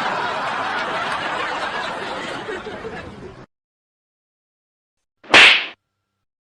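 A dense, rushing noise that thins out and cuts off abruptly about three and a half seconds in, followed by silence and then one short, loud smack, like a slap or whip-crack sound effect, about five seconds in.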